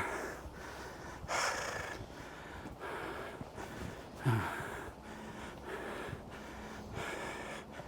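A person breathing hard from climbing uphill quickly, loud breaths about every second and a half, with a short voiced gasp about four seconds in.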